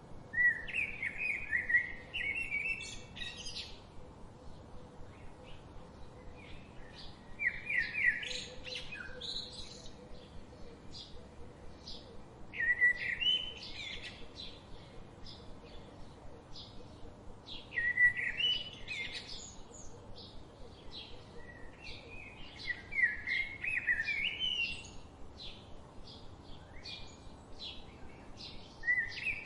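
Birdsong: one bird repeats a short warbled song phrase about every five seconds, six times, while other birds keep up quick high chirps in between.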